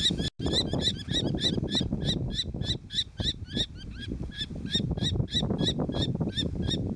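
Common kestrel nestlings calling: a rapid, steady series of short, high, shrill notes, about three to four a second.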